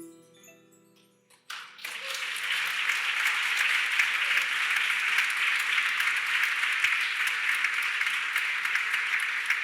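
The last notes of a musical piece ring out and fade, then an audience breaks into steady applause about a second and a half in.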